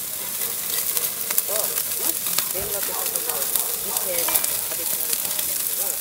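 Pork belly and abalone sizzling on a wire mesh grill over charcoal: a steady hiss with scattered sharp pops.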